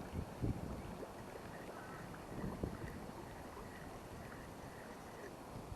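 Wind rumbling on the microphone, with a few soft low bumps.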